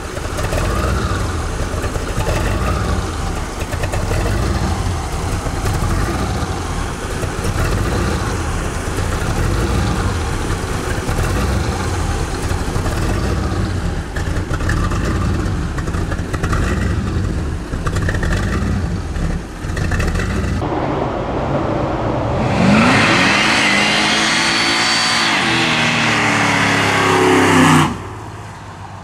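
Supercharged Chevy 350 V8 in a Mazda REPU pickup idling with a rough, pulsing beat. About three quarters of the way through, it revs hard in a burnout with tyres screeching for several seconds, then cuts off suddenly near the end.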